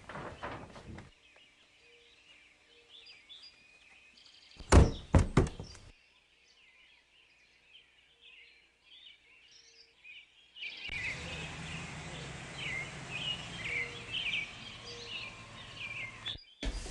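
Birds chirping, faint at first and louder over outdoor background noise near the end. About five seconds in there is a quick run of four or five loud knocks.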